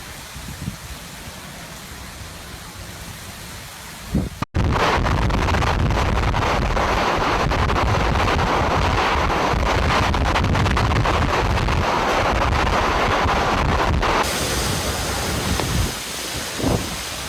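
Hurricane wind and heavy rain, with gusts buffeting the microphone. About four seconds in the sound cuts abruptly to a much louder stretch of driving rain and wind, and it shifts again to a somewhat quieter wind and rain near the end.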